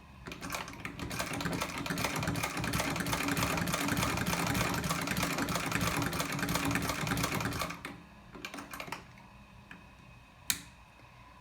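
Early-1880s Raymond No. 1 lockstitch treadle sewing machine stitching at a steady pace, a fast rattling clatter that builds up over the first second or two. It stops about three-quarters of the way through, followed by a few light clicks and one sharp click near the end.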